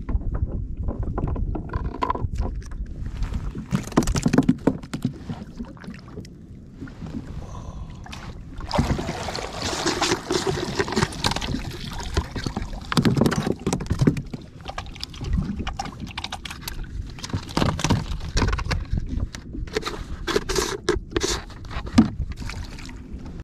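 Plastic fishing-gear containers being handled on a plastic kayak: irregular knocks, clicks and scrapes against the hull, with water splashing and gurgling as a perforated live-bait container is dipped over the side. A low rumble of wind runs underneath.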